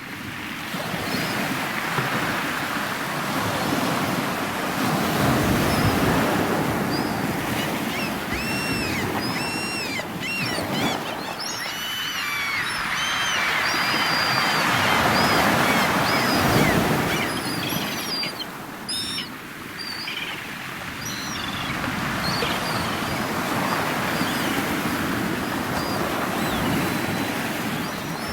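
Ocean surf washing in slow swells, with birds calling in short chirps through the middle stretch.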